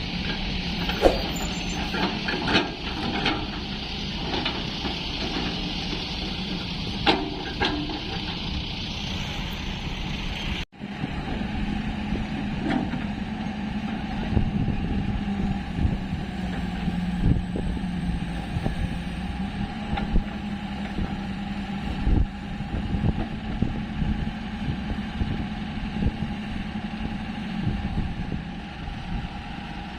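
Heavy diesel excavator engine running steadily, with scattered metallic knocks and clanks. The sound drops out briefly about ten seconds in, then the engine continues.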